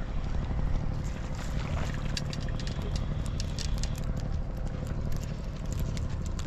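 A hooked garfish being reeled in on a spinning reel and lifted from the water, with irregular sharp ticks and splashy clicks in the middle seconds over a steady low rumble.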